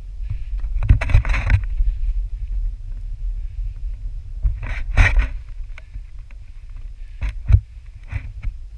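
Low rumble of wind and handling on a hand-held action camera's microphone, with several short scrapes and knocks as a hiker climbs over boulders holding the camera on a pole. The sharpest knock comes near the end.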